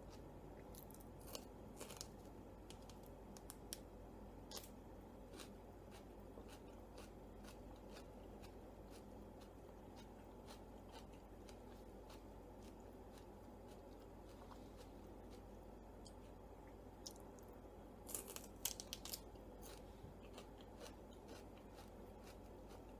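Faint, close-up chewing of a naan wrap and raw celery, with a few crisp clicks in the first five seconds and a short cluster of louder crunches about eighteen seconds in.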